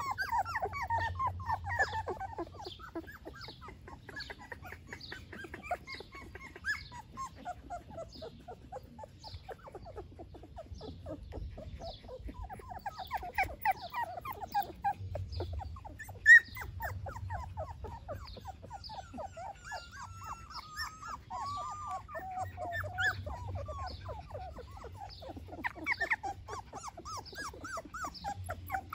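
A litter of young golden retriever puppies whimpering and squeaking, many short high cries overlapping in quick succession, with a few longer wavering whines past the middle. One sharp click about 16 seconds in.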